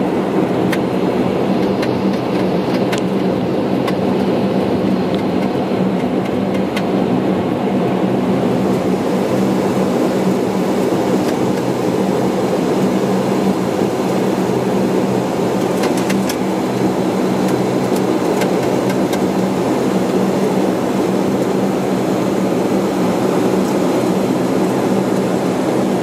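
Bombardier Dash 8 Q400's Pratt & Whitney PW150A turboprop engines and propellers running at taxi power, heard inside the flight deck as a steady drone with a low hum. A few faint clicks sound over it.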